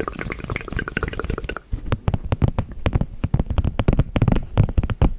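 Close-miked ASMR plucking-and-snipping trigger sounds: a dense run of quick, crisp, wet-sounding clicks and taps, which becomes sharper and busier after about a second and a half.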